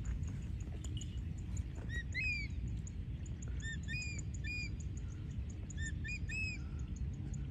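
Short, high bird chirps in three brief clusters, about two seconds in, around four seconds in and again near six seconds, over a steady low rumble.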